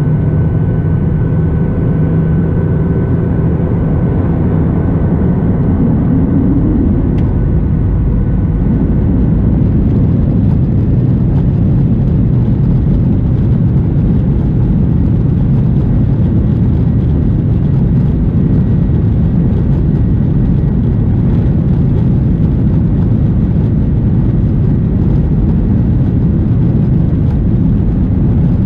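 Boeing 737-900ER's CFM56-7B jet engines running at taxi power, heard inside the cabin as a steady low rumble. It grows a little louder and brighter about ten seconds in.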